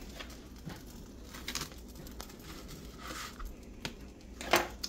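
Soft crinkling and tearing handling sounds as a rolled tortilla wrap is pulled apart by hand on a plate. A sharper knock comes near the end.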